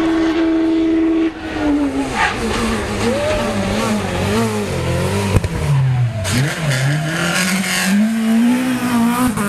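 Peugeot 206 rally car's engine at full effort. It holds one steady high note for about a second, then rises and falls sharply through gear changes, with a lift and drop in revs about six seconds in before pulling hard again.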